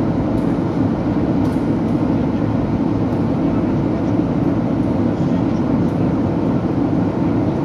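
Steady cabin noise inside a Boeing 737-800 airliner in flight: an even, low rush of airflow and engine noise that does not change.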